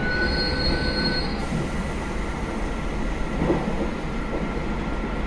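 JR Hokkaido KiHa 201 series commuter diesel railcar running, heard from inside the car: a steady mix of diesel engine and wheel-on-rail noise. A thin high squeal sounds for about the first second, then stops.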